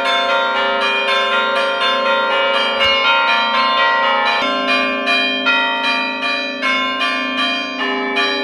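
Church bells of a Greek Orthodox church ringing, several bells of different pitches struck over and over at about two strokes a second, each stroke ringing on into the next.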